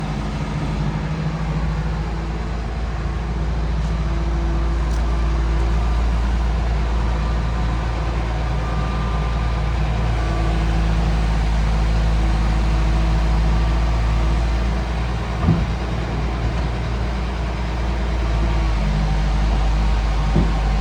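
Large excavator's diesel engine running steadily, with two short knocks in the last several seconds.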